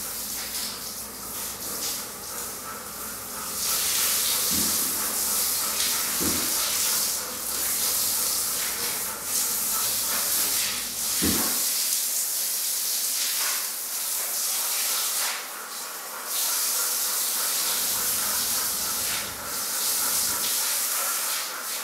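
Water spraying from a handheld shower head, a steady hiss that swells and fades as the spray is moved while the water warms up. A few faint knocks.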